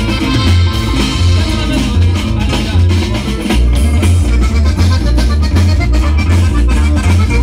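Live Mexican regional band music, loud and steady: accordion, guitar, bass and drum kit playing an upbeat dance tune.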